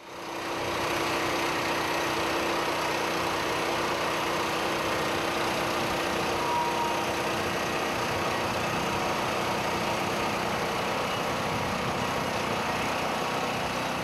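Small gasoline engine of a Norwood LumberLite ML26 portable band sawmill running steadily.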